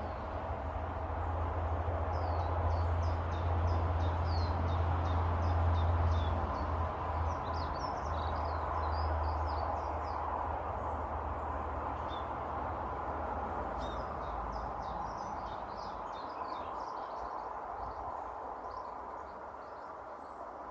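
Small garden birds chirping and twittering in quick bursts over a steady low rumble, which fades away about two-thirds of the way through.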